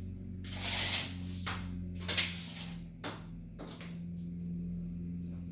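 A few short rubbing and sliding sounds of wood and tools being handled, over a steady low hum.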